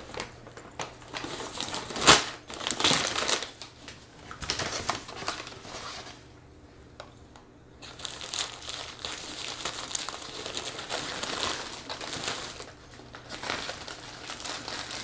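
Paper fast-food wrappers and a paper bag crinkling and rustling as burgers are unwrapped, in irregular crackles with one sharp, loud crackle about two seconds in and a quieter spell a little past the middle.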